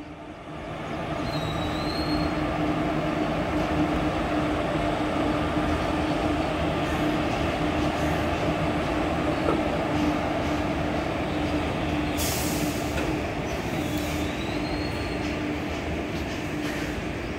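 Goods train hauled by a WAG-5HA electric locomotive rolling past: a steady rumble of wheels on rail with a steady low whine running through it, rising about a second in and then holding level.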